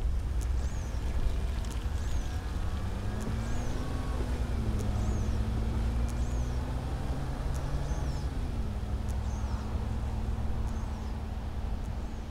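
Van engine running, heard from inside the cab as the van pulls away, its pitch rising and falling as it gathers speed and then settling. Windshield wipers sweep the glass about once a second, each pass giving a soft click and a short squeak.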